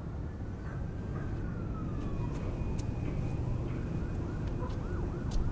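A distant siren over a steady low rumble: one slow falling wail, then quicker rising and falling yelps near the end.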